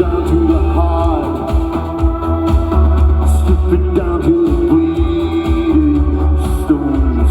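Rock music: a song with steady bass, guitar and a long wavering held note, possibly wordless vocals.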